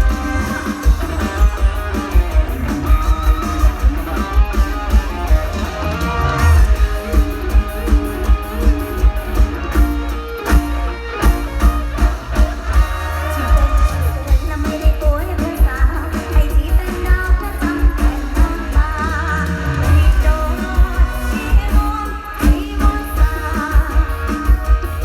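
Live mor lam band music played loud through a large PA: a heavy, steady bass-drum and bass beat under electric guitar lines, with singing.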